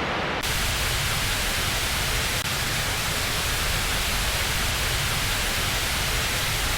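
A steady, even rushing noise with no pitch, spread evenly from deep rumble to high hiss. It cuts in and out abruptly.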